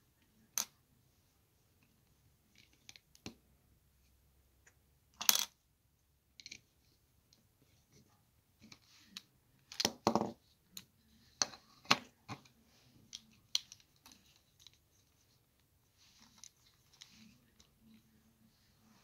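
Plastic LEGO bricks clicking and clattering as a small brick car is handled and pieces are fitted onto it: irregular sharp clicks, the loudest about five and ten seconds in.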